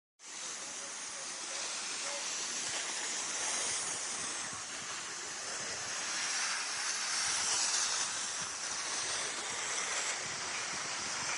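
Skis sliding over snow: a steady high hiss that fades in at the start and swells a little about two-thirds of the way through.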